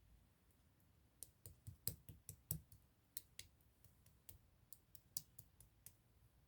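Clear slime being squished and stretched by hand, giving a run of sharp little clicks and pops at an uneven pace, thickest in the first half and thinning out toward the end.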